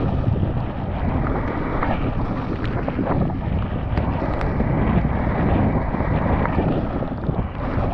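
Mountain bike riding down a rough, wet trail: wind buffeting the action camera's microphone over a steady rumble from the tyres and bike, with several short sharp knocks and rattles from the bike a few seconds in.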